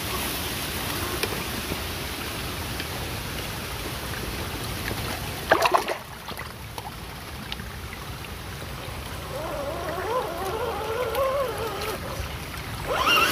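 RGT EX86100 V2 RC crawler driving through shallow muddy creek water, with water splashing and trickling around its tyres. A brief loud burst comes about five and a half seconds in. Later, the crawler's electric motor gives a whine that rises and falls with the throttle.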